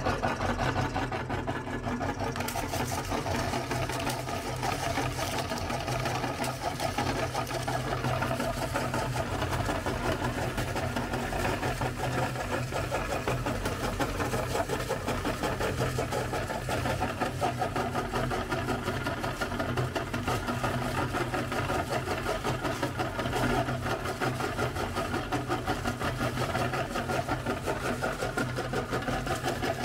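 Motor-driven meat grinder running steadily with a low hum, its auger crunching hard waffle ice cream cones into crumbs that spill out through the cutting plate.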